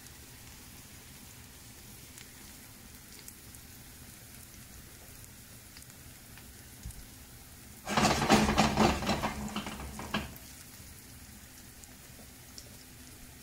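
Large Amanita calyptrata mushroom cap frying in a cast-iron skillet, with a faint steady sizzle. About eight seconds in, a loud crackling burst lasts around two seconds, then the gentle sizzle resumes.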